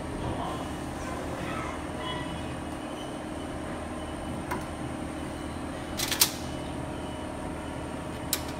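Steady machine hum with a few sharp metallic clicks as fittings are fastened onto a piezo diesel injector on an injector test bench. The loudest clicks come in a quick cluster about six seconds in.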